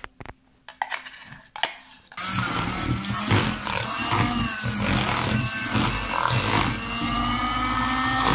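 A few light clicks of a spoon against the bowl, then an electric hand mixer is switched on about two seconds in and runs steadily, its beaters whipping boiled condensed milk into butter cream.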